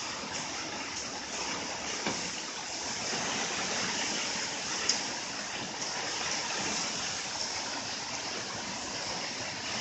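Typhoon wind and rain making a steady rushing hiss, with a single sharp tick about five seconds in.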